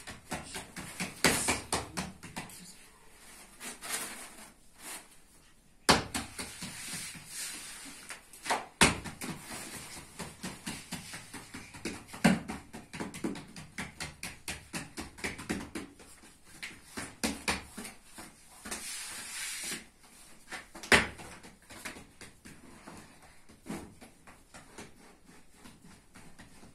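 Hands patting and pressing rounds of flatbread dough on a cloth: an irregular run of soft taps and pats, with a few sharper knocks.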